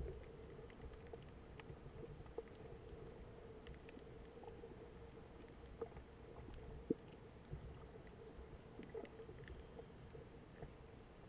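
Faint underwater sound heard from beneath the surface: a steady muffled low rumble with a constant hum and scattered faint clicks and crackles, one sharper click about seven seconds in.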